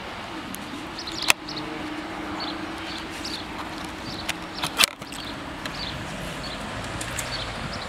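Outdoor background of small birds chirping, with a faint steady hum and two sharp knocks, one about a second in and one about halfway through.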